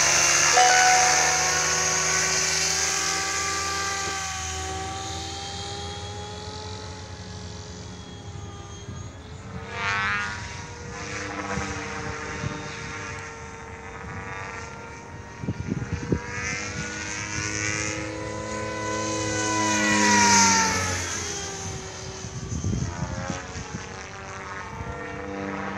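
Gaui R5 radio-controlled helicopter in flight: a steady whine from its motor and rotors. It is loud at first and fades as the helicopter moves away, then grows louder twice, about ten and twenty seconds in, with its pitch sweeping up and down as it passes close by.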